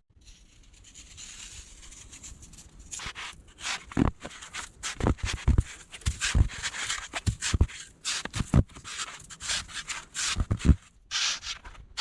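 Footsteps crunching through deep snow, irregular steps starting about three seconds in, each a low thump with a gritty hiss.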